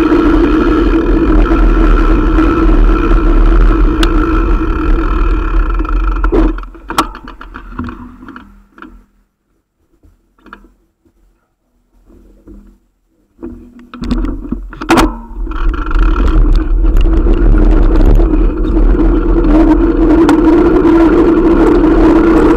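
Wind and tyre rush on a bicycle-mounted camera riding along a paved street, a loud steady noise with a heavy low rumble. It drops away to near quiet for about seven seconds while the bike is stopped, with a sharp click as it halts and another as it sets off again.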